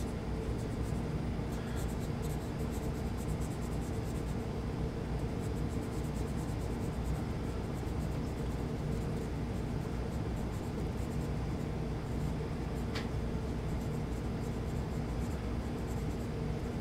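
Felt tip of a gun blue pen rubbing back and forth in short strokes on the S30V stainless steel tang of a folding knife blade, a faint scratchy writing sound over a steady low hum. A single brief click about thirteen seconds in.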